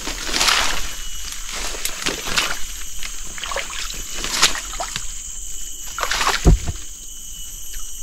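Footsteps pushing through ferns and undergrowth on the forest floor: irregular swishing and rustling of leaves and stems, with one heavier thud late on.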